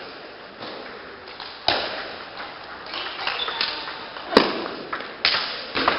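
Table tennis rally: the celluloid ball clicking off rubber-faced rackets and the tabletop in a series of sharp, irregularly spaced knocks. The loudest knock comes about two-thirds of the way through.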